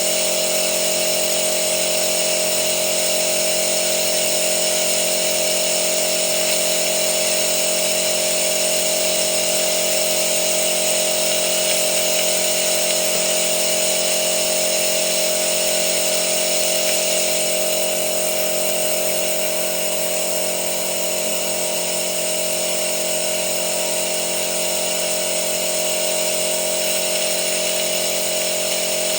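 A loud, steady mechanical running sound with a constant high whine. It drops a little in level about two-thirds of the way through.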